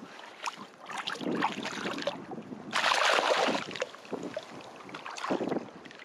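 Water splashing in the shallows in several irregular bursts, the loudest and longest about three seconds in.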